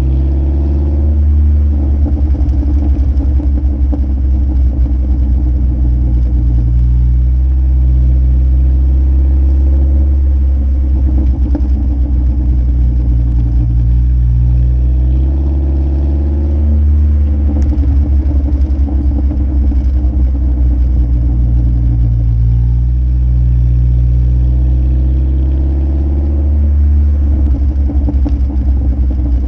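Muffler-deleted exhaust of a 2015 Ford Focus SE's 2.0-litre four-cylinder engine droning loudly while driving. The note rises and falls in pitch several times, with patches of crackling.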